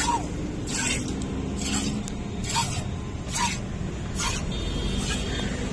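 Hand milking a cow: short hissing squirts of milk hitting a steel pot that already holds milk, about one squirt a second, each with a small wet splash. A steady low rumble runs underneath.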